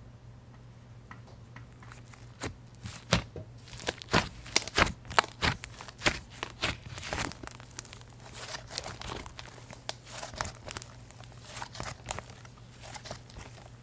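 Thick, fluffy white slime being stretched and then squeezed and kneaded by hand, giving a run of small crackling clicks. They begin about two seconds in, are loudest around four to six seconds in, then settle into softer, denser crackle. A faint steady hum underneath.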